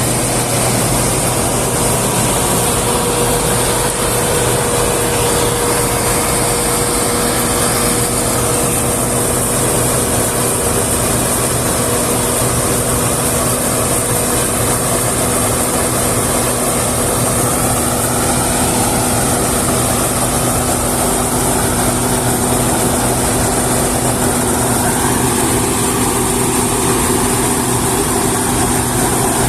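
Combine harvester running steadily under load, a continuous engine and machinery drone with steady hums; a lower tone joins about seven seconds in.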